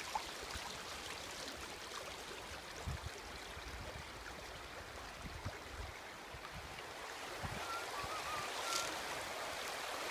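A river flowing over a stony bed, a steady rushing of water.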